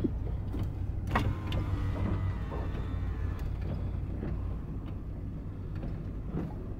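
Inside a van's cabin while driving slowly over a dirt track: a steady low engine and tyre rumble, with occasional sharp knocks and rattles, the loudest about a second in.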